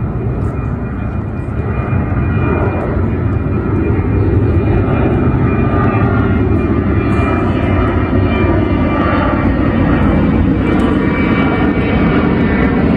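Boeing 737-800 jetliner climbing out overhead after takeoff, its two CFM56-7B turbofan engines running at climb power: a steady deep rumble with a faint whine above it, growing louder over the first few seconds and then holding.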